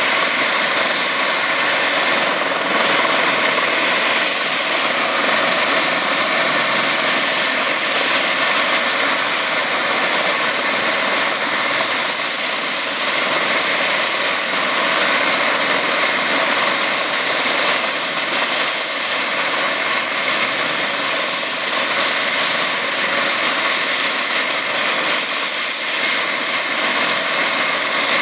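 Eurocopter EC135 air-ambulance helicopter running on the pad before lift-off, its twin turbine engines and rotor making a loud, steady rushing whine that holds even throughout.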